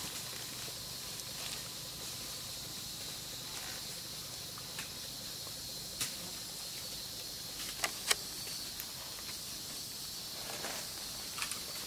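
Steady high-pitched insect drone, with a few short crackles of dry leaf litter stirred by macaques, once about six seconds in and twice close together around eight seconds.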